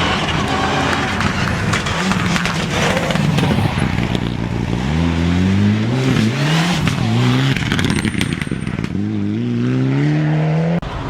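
Rally car engine accelerating hard, its pitch climbing, dropping at each upshift and climbing again several times, over loud road and tyre noise. The sound changes abruptly near the end.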